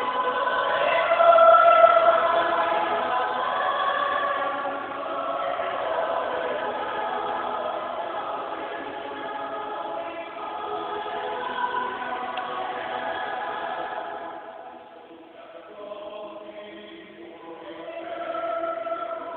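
A choir singing in a large cathedral, many voices holding long sustained notes. The singing grows quieter about fifteen seconds in, then swells again near the end.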